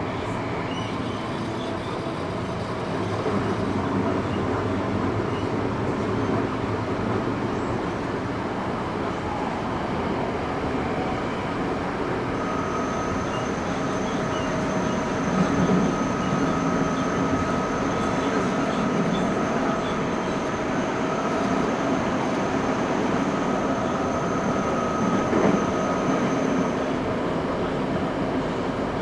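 Eidan 05 series (N05) subway train heard from inside the car while running between stations: steady rumble of wheels on rail. About halfway through, a thin steady high whine joins in and stops shortly before the end.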